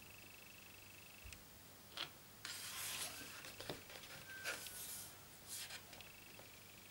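Quiet handling of a photobook's paper pages: a click, then a page being turned with a soft swish about two and a half seconds in, followed by shorter rustles as a hand rubs and smooths the new page flat.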